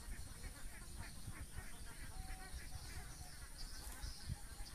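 Outdoor ambience: wind rumbling on the microphone, a steady high insect buzz, and scattered short chirps.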